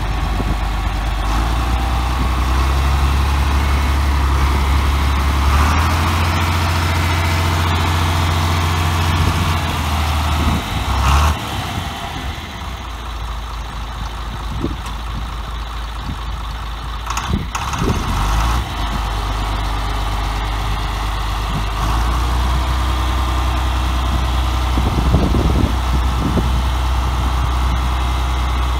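John Deere farm tractor engine running with a deep, steady drone while the tractor is driven about. The sound drops quieter for several seconds in the middle, then comes back up.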